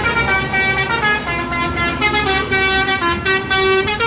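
Indonesian 'telolet' bus horn playing its tune: a run of held multi-tone horn notes that step from pitch to pitch.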